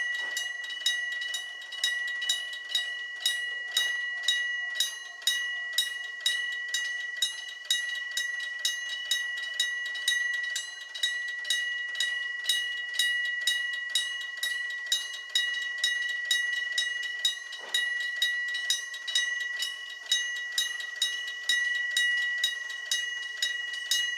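A Nippon Signal electric-bell level-crossing warning bell ringing, its strikes repeating at an even pace of roughly two a second over a steady metallic ring.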